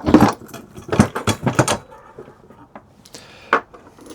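Small metal parts and tools clinking and rattling as they are handled: a quick run of clicks over the first two seconds, then a few scattered ones.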